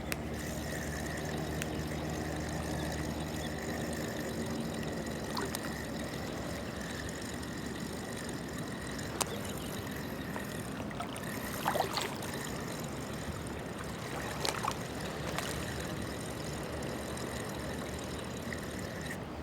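Steady wash of seawater trickling and lapping along the shore, with a low engine hum fading out in the first few seconds and a few short sharp clicks later on.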